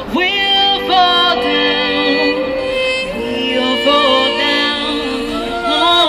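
A woman singing into a microphone, amplified, over steady held backing chords; her voice slides up into a long held note at the start and carries on in sustained phrases.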